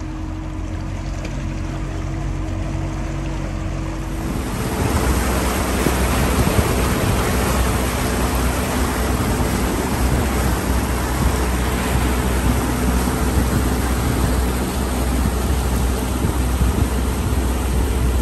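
A motorboat's engine running steadily, then opening up about four seconds in as the boat gets under way. From then on the engine hum is joined by a loud, steady rush of water and wind.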